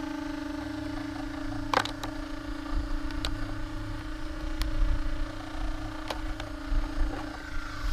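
Steady electric whine from a stationary electric RC car, holding one even pitch throughout. A few light clicks and knocks sound over it, and there is a low rumble underneath.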